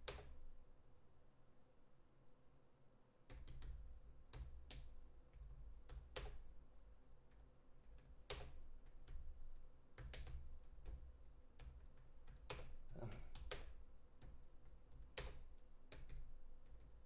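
Typing on a computer keyboard: faint, irregular runs of keystrokes, starting after a pause of about three seconds, with a low hum behind them.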